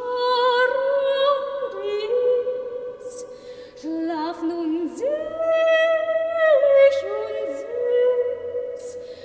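A woman singing solo, holding long notes that slide between pitches and waver with vibrato, with short breaks between phrases.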